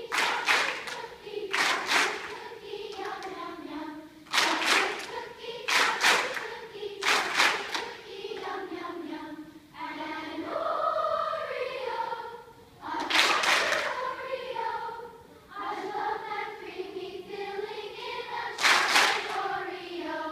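A large children's choir singing vocal warm-up exercises: many voices together on held notes that step up and down, with short, sharp bursts between the phrases.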